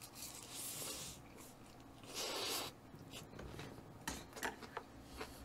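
A person quietly chewing raw bluefin tuna sashimi. There are two soft rushing noises within the first three seconds, then faint, scattered mouth clicks.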